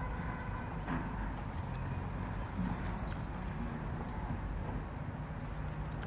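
Steady high-pitched insect chorus, crickets or cicadas, over a low rumble.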